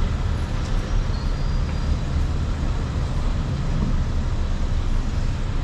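Street traffic noise: a steady wash of passing cars and other vehicles with a low rumble.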